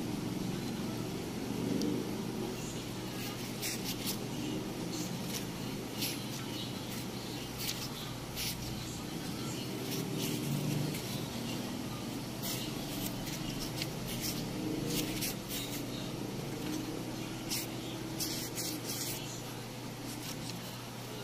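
Pages of a small printed user manual being turned and flipped by hand, making short crisp paper rustles and ticks, over a steady low hum and rumble.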